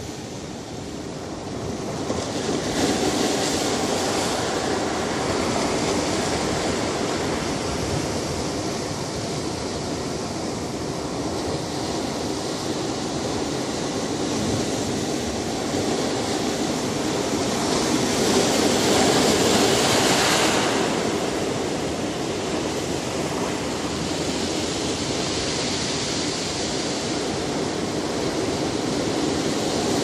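Ocean surf washing and breaking, a steady rushing noise. It swells a couple of seconds in, then surges louder for a few seconds past the middle as a bigger wave breaks.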